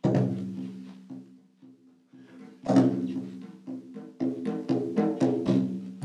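Drums struck by hand in a rhythmic pattern, each stroke ringing with a low tone. There is a strong stroke at the start, sparser strokes after it, and a burst of quicker strokes in the second half.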